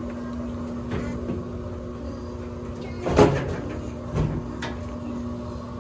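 Knocks and clunks of a dryer's sheet-metal parts being handled and fitted back together during reassembly: a small click, then a loud knock with a brief rattle about three seconds in and a lighter knock a second later, over a steady low hum.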